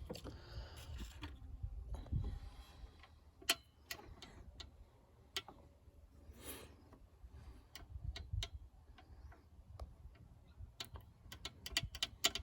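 Scattered light clicks and taps of hand tools and small parts being handled during a spark plug change, with a few soft rustles early on and a quicker run of clicks near the end.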